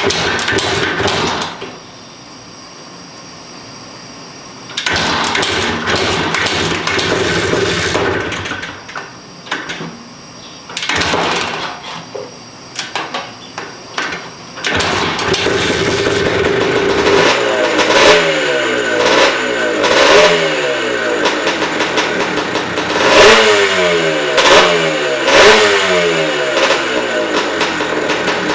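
Vintage Rickman dirt bike engine being started: it runs in short, choppy bursts at first, then keeps running from about halfway through, with the throttle blipped over and over so the pitch jumps up and falls back.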